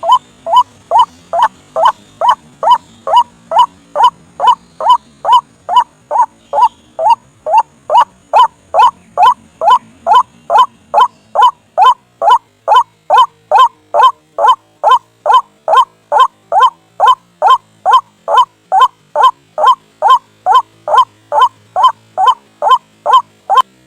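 White-breasted waterhen (ruak-ruak) calling: a single short, slightly rising note repeated steadily about twice a second, the monotonous call played as a lure to draw the birds to a trap.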